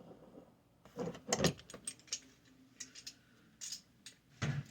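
Scattered metallic clicks and clunks from a hydraulic door closer and its arm being handled and worked by hand.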